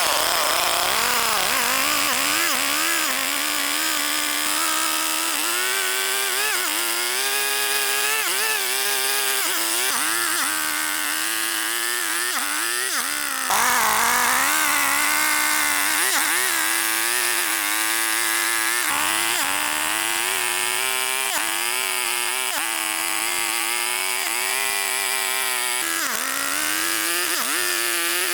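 Chainsaw running and cutting wood, its engine pitch wavering up and down as it works. There is a sudden jump in level about halfway through.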